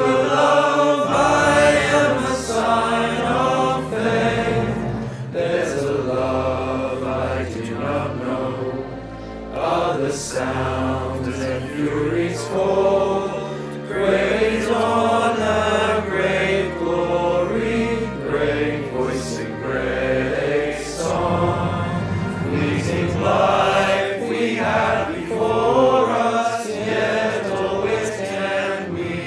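A virtual choir of schoolboys' male voices singing the school song together, with a steady low accompaniment under the voices.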